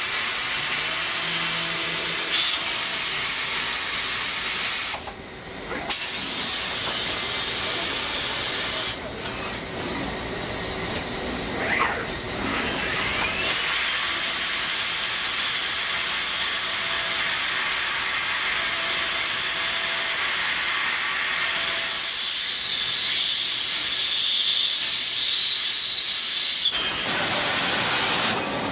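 CNC lathe machining under flood coolant: a steady spraying hiss of coolant and cutting, changing abruptly several times as the shots change.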